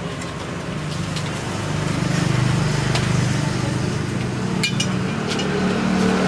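A motor vehicle engine running close by, a steady low hum that grows louder about two seconds in, with a few sharp clicks near the end.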